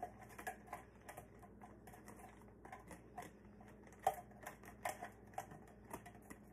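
Sliced vegetables being shaken and tapped out of a mandoline's clear plastic catch tray into a zip-top bag: light, irregular clicks and taps of plastic, with two sharper taps a little after four seconds and just before five.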